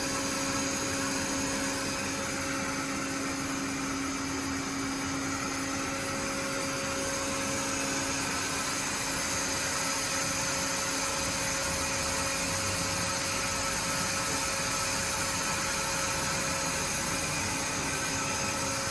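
Chiron FZ 12 MT High Speed Plus CNC machining centre running under power: a steady mechanical whir with a constant two-note hum and hiss, unchanging throughout.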